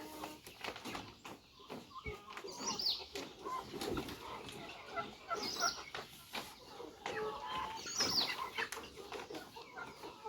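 A flock of chickens clucking, with high falling calls about three times and scattered scuffs and rustles among the birds.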